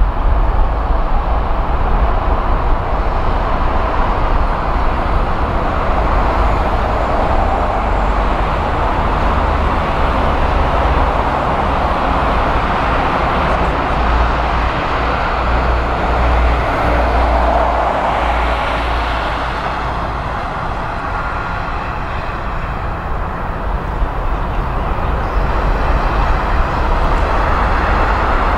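Airbus A330 airliner's jet engines at takeoff thrust: a loud, continuous roar over a deep rumble as it rolls, lifts off and climbs away. The roar eases slightly about two-thirds of the way through, then swells again near the end.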